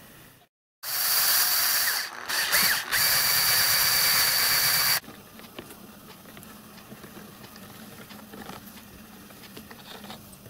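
About a second in, a loud, steady machine noise with a high whine sets in, dips briefly twice, and cuts off after about four seconds. After it come faint clicks from the small lathe's brass gear train as a hand turns the T-handle.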